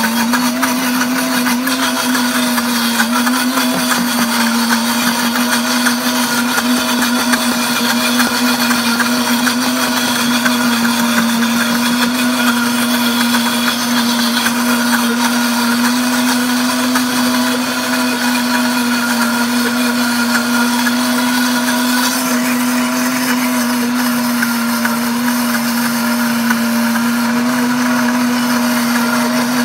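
Pampered Chef Deluxe blender running steadily at speed setting 6, grinding roasted hazelnuts and coconut oil into a smooth nut butter. It is a continuous motor whine with a slightly wavering pitch, and the higher hiss eases a little about two-thirds of the way through.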